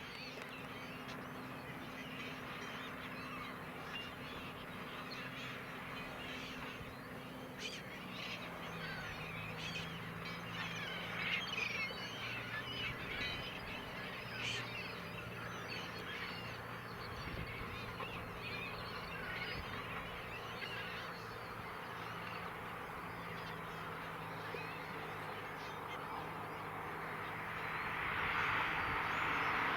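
A large flock of gulls calling over a ploughed field, many overlapping cries, over the steady low hum of a tractor engine whose note drops about eight seconds in. Near the end a broad rushing engine noise swells louder.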